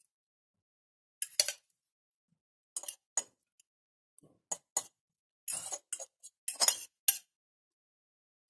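A metal fork clinking and scraping against a bowl in about five short clatters, as flaked canned tuna is pushed out of it onto a salad.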